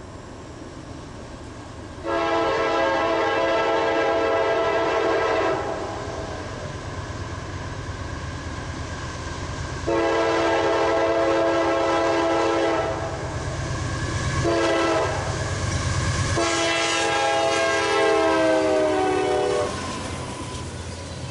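Freight locomotive horn blowing the grade-crossing signal: two long blasts, a short one and a final long blast whose pitch drops toward its end, over the low rumble of the moving train.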